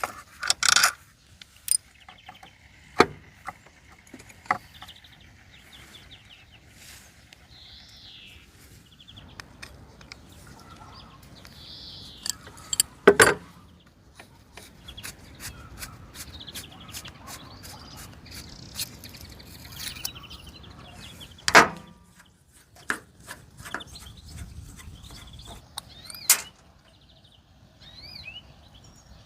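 Hand work on scooter parts: scattered sharp knocks and clicks, the loudest about 13 and 21 seconds in, with stretches of scraping between them. Birds chirp faintly in the background.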